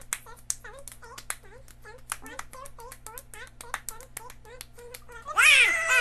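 Two children playing a fast hand-clapping game: rapid sharp palm claps, about six a second, with short rhythmic chanted syllables between them. A little past five seconds in comes a loud high-pitched squeal that slides down in pitch, the loudest sound here.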